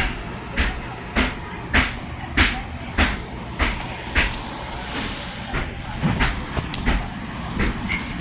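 Bathroom wall tiles being knocked off: sharp strikes, about one every 0.6 seconds, for the first five seconds or so, then lighter and less regular.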